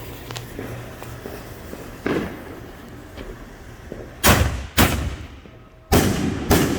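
Consumer fireworks going off: a lighter bang about two seconds in, then four sharp, loud bangs in two quick pairs, each trailing off.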